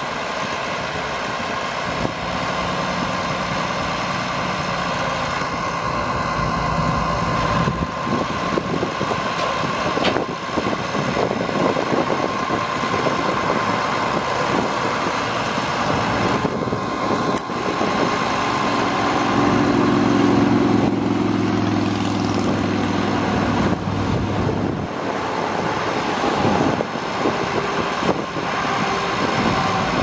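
International Harvester 1466 tractor's turbocharged six-cylinder diesel running steadily, its low note shifting twice as the front loader is worked.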